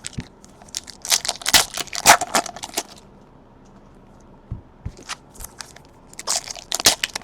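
Plastic trading-card wrapping being torn open and crinkled in two spells of sharp crackling, with a few low knocks in the pause between.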